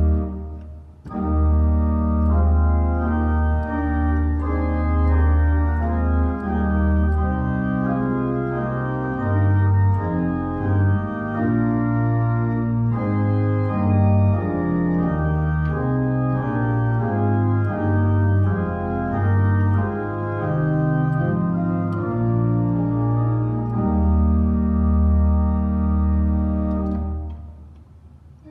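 Neutel church organ playing sustained chords over a deep pedal bass, with a short break about a second in and a moving bass line through the middle; the phrase is released near the end before the next one starts.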